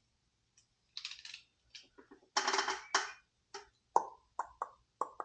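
Light, irregular clicks and short rustles of small metal wiring terminals and hand tools being handled, with a quick run of sharp clicks in the second half.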